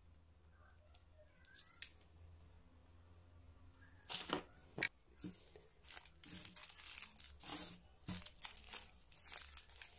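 Foil and plastic twist wrappers of mini chocolates crinkling as they are handled and picked up by gloved hands. It is quiet for the first few seconds, then come two sharp crackles about four seconds in, followed by a run of rustling crinkles.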